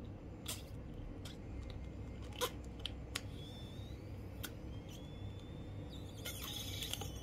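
Small rubber balloon being blown up by mouth against strong resistance: faint scattered clicks and thin squeaks of the stretched rubber, and a short rush of air near the end.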